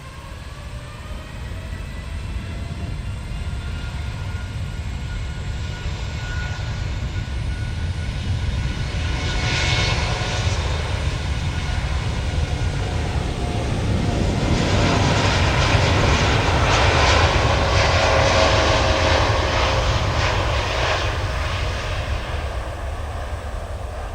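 Boeing 787-8 airliner's Rolls-Royce Trent 1000 turbofans at takeoff power: a whine glides upward near the start over a heavy rumble. The sound grows louder to a peak about two-thirds of the way through, then eases off.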